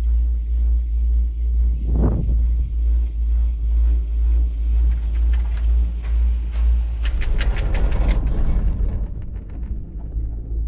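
Low, pulsing rumble of wind buffeting the microphone on a ride up a Leitner detachable six-seat chairlift. About seven seconds in, a burst of sharp rattling clicks lasts a couple of seconds, after which the rumble eases.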